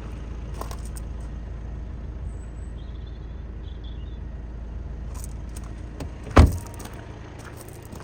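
A car door shut firmly about six seconds in, one sharp thud, over a steady low rumble and a few light clicks.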